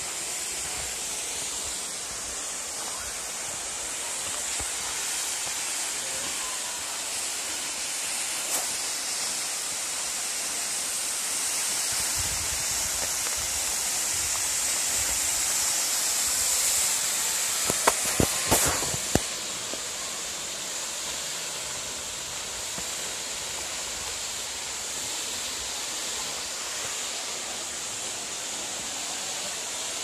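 Steady rushing hiss of a tall waterfall, swelling a little toward the middle and easing again. A short cluster of sharp knocks stands out about two-thirds of the way through.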